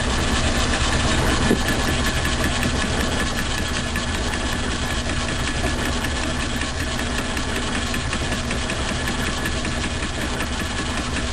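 Logan metal lathe running with a fly cutter in its chuck, milling a workpiece clamped in a vise on the cross-slide: a steady machine drone with a fast, even ticking through it.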